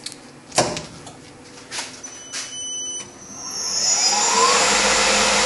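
Tormach PCNC 1100 mill's spindle motor, running with its belt off, started from the control panel: a few clicks at the switches, then the motor spins up with a rising whine that settles about four seconds in into a loud, steady high whine at about 4,000 RPM.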